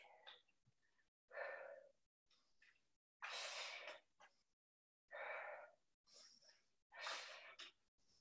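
A person breathing hard close to the microphone during a workout: four breaths, each well under a second and about two seconds apart, with silence between them.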